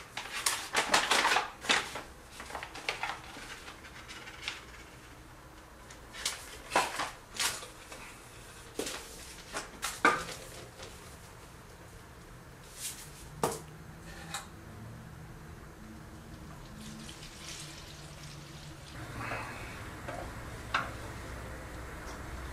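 Water splashing in a pot, with scattered clinks and knocks of a utensil against it in short bursts: flour, water and salt being mixed into engrudo, a flour-paste glue.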